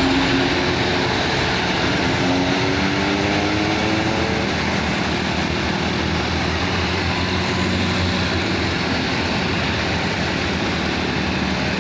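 Coach bus diesel engine running under load on a steep climb, a steady drone whose pitch slides up and down between about one and four seconds in.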